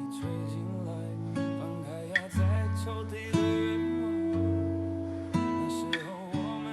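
Background music: acoustic guitar plucking slow, sustained chords over low bass notes, the chord changing every second or so.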